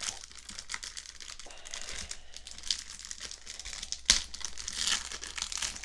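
Plastic wrapper of a trading-card rack pack cell being crinkled and torn open by hand: a run of irregular crackles with one sharp snap about four seconds in.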